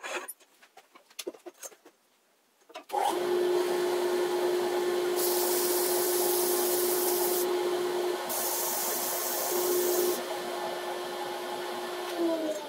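A few light clicks and knocks, then a dust extraction vacuum switches on abruptly and runs with a steady motor hum and rushing air. Twice the hiss of sandpaper against the spinning magnolia wood rises over it for a couple of seconds. Near the end the motor winds down, its pitch falling.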